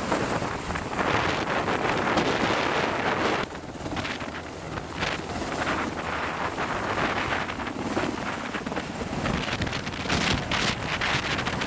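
Wind buffeting the microphone on an open ship's deck at sea, heavier for the first few seconds, then dropping after a cut about three and a half seconds in to lighter, uneven gusts.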